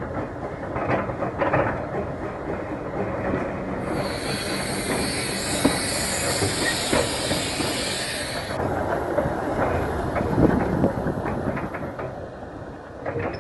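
Hunslet narrow-gauge steam locomotive standing in steam over a constant rumbling background. About four seconds in, a loud hiss of steam starts abruptly and cuts off after about four and a half seconds.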